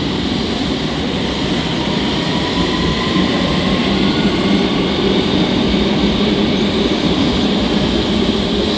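London Underground S stock train running along the platform: a steady, loud rumble and rattle of wheels on rail that slowly grows louder, with a faint rising whine early on.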